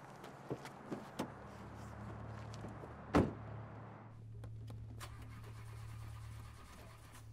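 A car door shuts with one heavy thud about three seconds in, after a few light knocks. A steady low hum then carries on from inside the Saturn Aura sedan's cabin.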